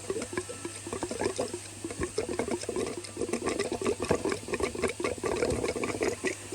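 Petrol and trapped air spluttering and gurgling through the Range Rover Evoque's fuel feed line at the disconnected high-pressure pump connector, as the pressurised tank pushes fuel through to clear an airlock. Irregular crackly pops and bubbling that grow busier about two seconds in.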